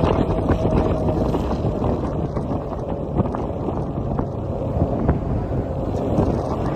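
Car tyres rumbling steadily over an open steel-grid bridge deck, heard from the moving car, with wind noise on the microphone.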